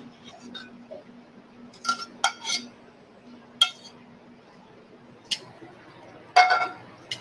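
Metal tongs clinking against a skillet as noodles are lifted out and plated: about five sharp, ringing clinks spread a second or so apart, over a faint steady hum.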